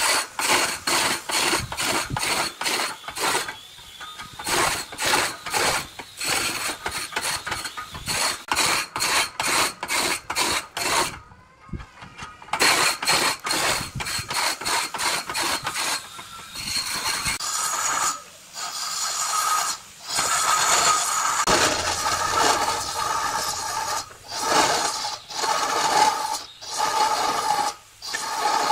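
Power woodworking tools cutting wood. First comes a fast run of short, rough scraping strokes, two or three a second, with a brief break partway through. Then it settles into a steadier cut with a high ringing squeal.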